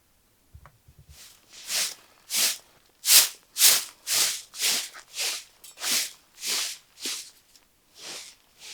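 A run of rhythmic rasping or scraping strokes, about two a second, loudest in the middle and fading near the end.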